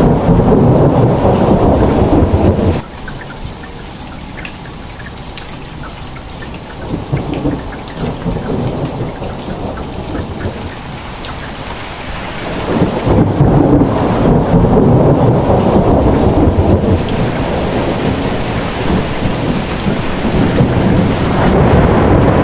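Heavy rain pouring down in a thunderstorm, a steady roar with a deep low rumble in its loud stretches. It drops abruptly to a softer hiss about three seconds in and swells back loud from about twelve seconds.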